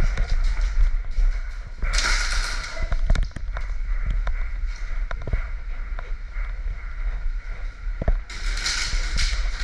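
Airsoft guns firing: scattered, irregular sharp pops with no steady rhythm, over a steady low rumble, with a burst of hissy noise about two seconds in and again near the end.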